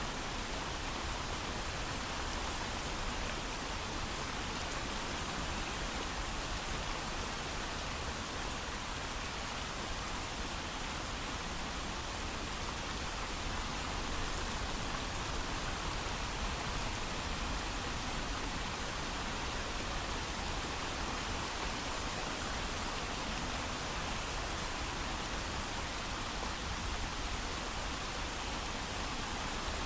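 Steady heavy rain falling, an even continuous hiss with no thunder and no single drops standing out.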